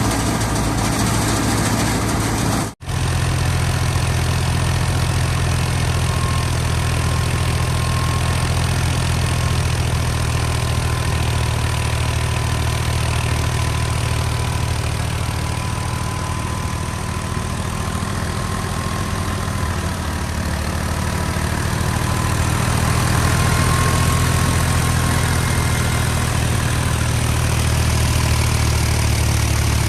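Fiat 480 tractor's diesel engine running steadily under load while driving a wheat thresher, with the thresher's mechanical din over it and a faint high whine through the middle. The sound cuts out for an instant about three seconds in.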